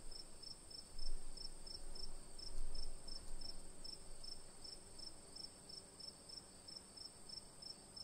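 Insects chirping: a steady high-pitched trill with a second, pulsed chirp repeating about three times a second. Low rumbles come about a second in and again near the three-second mark.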